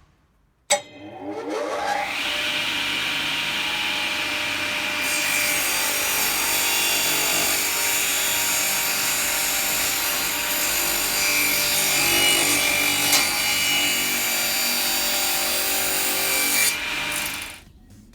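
Clarke CCS12 table saw switched on with a click, its motor whining up to speed, then running steadily while the blade cuts through wood for about twelve seconds before the sound stops abruptly near the end.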